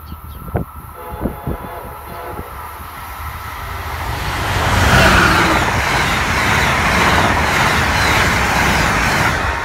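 Amtrak passenger train led by an ACS-64 electric locomotive passing at speed: a rush of wheels on rail that builds over a few seconds, peaks about five seconds in and stays loud as the coaches go by, then cuts off abruptly.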